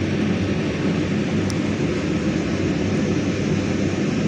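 A steady, even rumbling noise, heaviest in the low range, with no distinct events.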